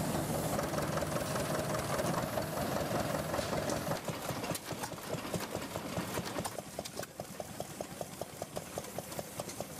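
Vintage baling machine running: a steady mechanical noise that, about four seconds in, becomes a regular clatter of about four or five knocks a second.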